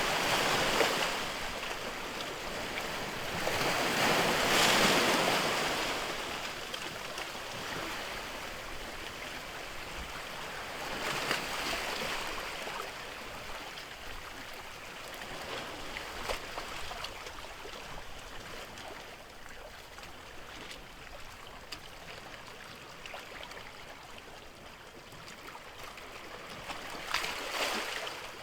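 Sea waves breaking and washing in, a steady wash of water rising into louder surges every several seconds, with the loudest surge about four to five seconds in.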